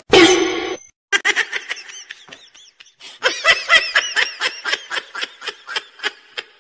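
A person laughing: a brief loud vocal burst at the start, then from about a second in a long run of quick, high-pitched laughs.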